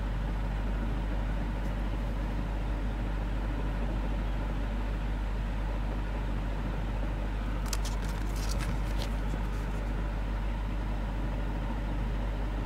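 Steady low hum over background noise, with a brief run of crackles about eight seconds in from the paper instruction sheet being handled.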